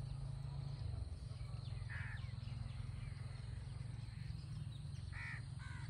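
Rural outdoor ambience: a steady low hum with short bird calls, one about two seconds in and two more near the end.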